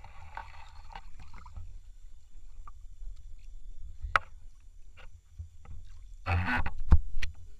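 Muffled water noise around a speargun-mounted camera in the river: a steady low rumble with scattered small ticks and one sharp click about four seconds in. A little after six seconds comes a loud splashing rush, ending in a hard thump.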